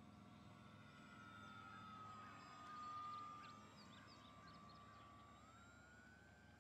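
Faint, steady whine of a model airplane's 160-watt electric outrunner motor and propeller in flight. It grows a little louder about three seconds in as the plane passes, its pitch sagging slowly and then rising about five seconds in.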